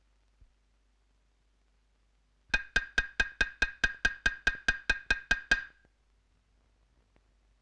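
Percussion: one pitched knock repeated in an even run of about fourteen strikes, about four a second, for roughly three seconds, then it stops.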